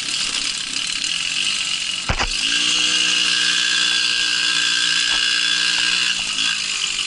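Small two-stroke moped engine running at a steady speed under a steady hiss, after a sharp click about two seconds in; its note sags briefly near the end and then picks up again.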